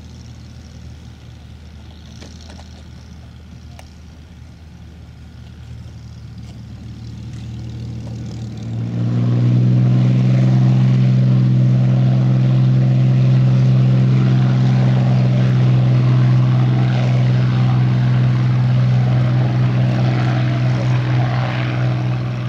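Hawker Hurricane's Merlin V12 engine running at low power, then opened up about nine seconds in to full take-off power. From there it is a loud, steady propeller drone as the fighter accelerates down the runway for take-off.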